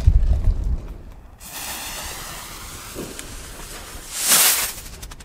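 A low rumble in the first second, then a small salute rocket hissing steadily for a couple of seconds. About four seconds in it lifts off with a short, loud whoosh, trailing gold sparks.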